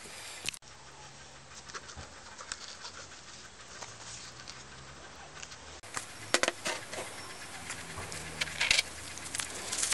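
Small metal fasteners and fittings handled with gloved hands against a plastic gutter bracket: scattered clicks, taps and light rattles, denser and louder in the last few seconds.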